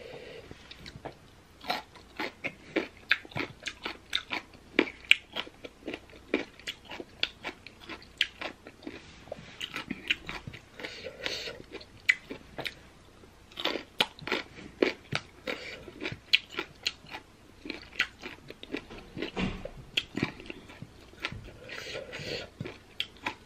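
Crisp crunching and chewing of raw green baby mango slices dipped in chili sauce, with many sharp crunches a second, bite after bite.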